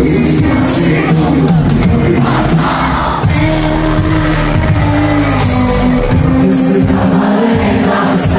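Rock band playing live and loud, with vocals over guitars and drums and cymbal hits, and an audience heard in the hall.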